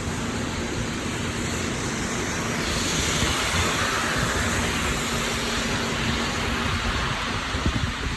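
Steady rushing of heavy rain mixed with tyre hiss of traffic on a wet road, swelling for a couple of seconds in the middle, over a steady low hum.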